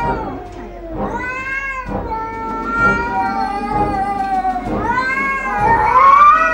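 Two domestic cats in a face-to-face standoff, yowling: a string of long, wavering caterwauls, each lasting a second or more, the last rising in pitch and loudest near the end. This drawn-out yowling is the threat call cats make when squaring off before a fight.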